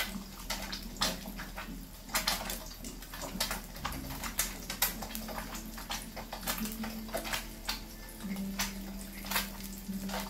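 Egg frying in oil in a wok over a medium gas flame, sizzling with many irregular crackles and pops. A faint low hum comes and goes underneath.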